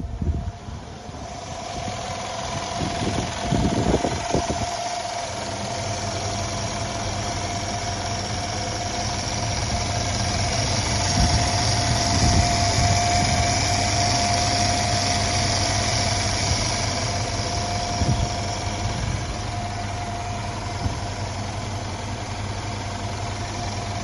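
Mercedes ML 63 AMG engine idling steadily after being started, with a steady high whine over the low running sound.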